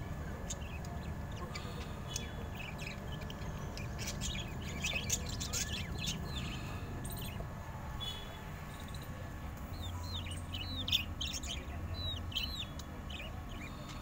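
Budgerigars chirping and chattering in quick, short high calls, in two flurries, the first a few seconds in and the second after about ten seconds, over a steady low hum.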